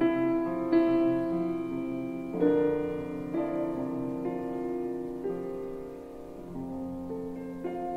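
Slow solo piano music: soft chords struck about once a second and left to ring and fade.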